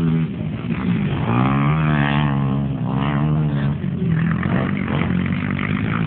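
Off-road racing engines running. About a second in, one engine's note rises slightly and holds steady for about two and a half seconds, then fades back into the general drone.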